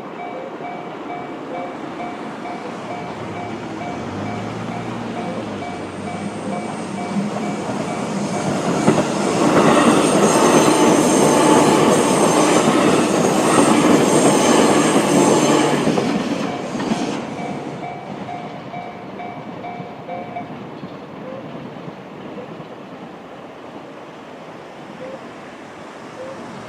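A JR-standard electronic level-crossing bell rings with a steady repeating tone while a JR 211-series electric train runs through the crossing. The train's wheels on the rails are loudest for about seven seconds in the middle. The bell stops about two-thirds of the way through.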